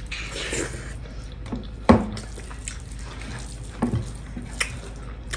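Close-up wet eating sounds of a person chewing a mouthful of pork fry and rice, with a few sharp mouth smacks or clicks, the loudest about two seconds in.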